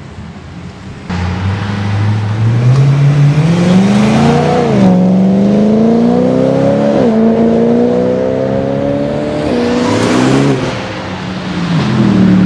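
BMW M3 E92's V8 accelerating hard away, its engine note climbing steeply through a gear, upshifting twice with a sudden drop in pitch each time, then fading into the distance. A second car passes near the end.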